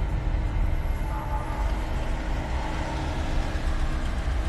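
Steady low rumble inside a car's cabin: engine and road noise of a car moving slowly in traffic, with a faint steady hum over it.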